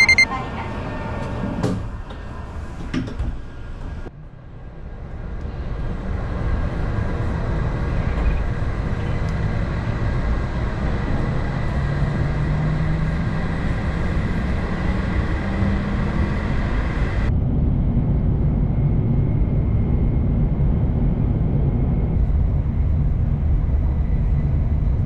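Shinkansen train sounds in three parts: clicks and a short tone at the carriage's sliding doors, then a hum rising in pitch as a train pulls away, then a steady rumble inside the carriage running at about 234 km/h.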